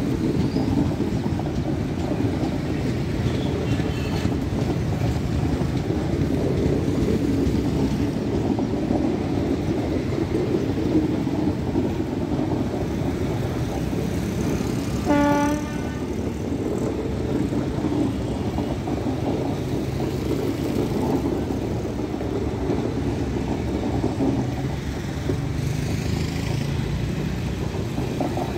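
Passenger coaches of an express train running past on the track, with a steady noise of steel wheels on the rails. A short horn toot sounds about halfway through.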